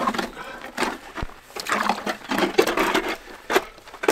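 Hand-cranked ice auger grinding down through thick lake ice, an uneven run of scraping, rasping strokes as the blades cut.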